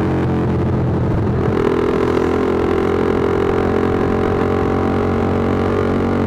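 Z200S sport bike with an aftermarket SC Project muffler on a 51 mm elbow, its exhaust running steadily while riding. The note changes about a second and a half in, then holds steady.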